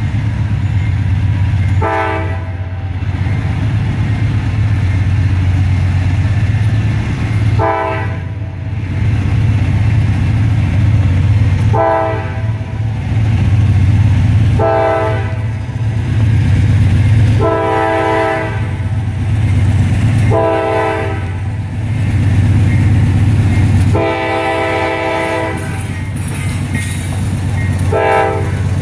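GE AC44CW diesel locomotive sounding its air horn in a string of about nine blasts, some short and some over a second long, over the steady low drone of its diesel engine working hard as it leads a heavy freight train.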